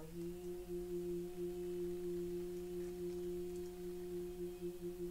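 A voice intoning one long, steady chanted note, a softly voiced spell.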